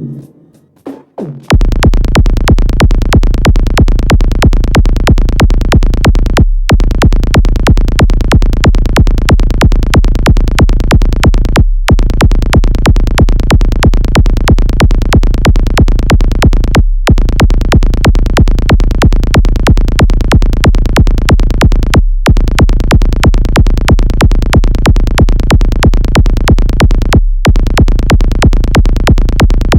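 Electronic music: after a quiet, sparse opening of about a second and a half, loud synthesizer and drum-machine beats come in, very fast and dense, with a brief full break about every five seconds.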